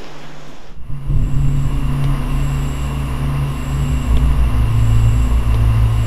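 Horror-film sound design: a dense, pulsing low rumbling drone with thin steady high ringing tones above it, starting abruptly about a second in, after a softer low pulsing hum.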